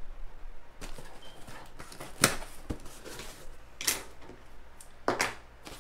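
A cardboard shipping box being opened by hand: flaps folded back and the packing inside handled, giving four short scrapes and knocks, the loudest about two seconds in.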